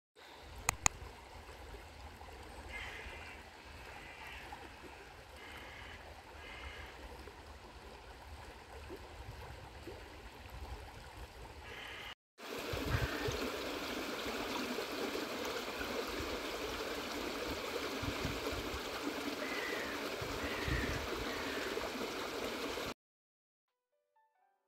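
Small shallow brook flowing steadily over a stony bed, with a brief break about halfway and louder after it, then cutting off shortly before the end.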